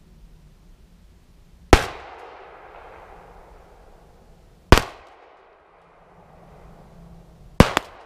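12-gauge Mossberg Model 500 pump-action shotgun fired three times, about three seconds apart, each shot trailed by a short echo.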